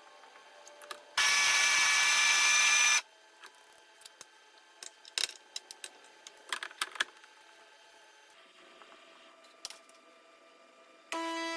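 Espresso machine's built-in conical burr grinder running for about two seconds. Then several clicks and knocks, as of the portafilter and machine parts being handled. Near the end a steady electronic beep-like tone starts.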